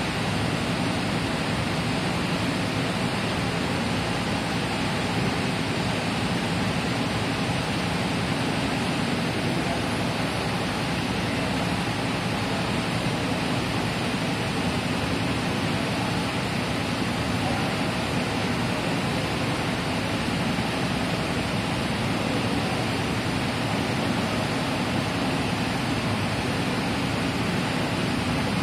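Steady, even rushing noise at one constant level, with no distinct events.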